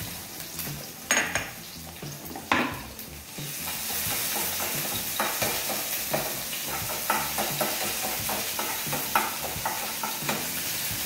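Chopped green chillies, ginger and garlic frying in hot oil with mustard seeds in a non-stick pan, stirred with a spatula. Two sharp knocks of the spatula on the pan come in the first few seconds, then a steady sizzle with many small crackles and clicks sets in about three and a half seconds in.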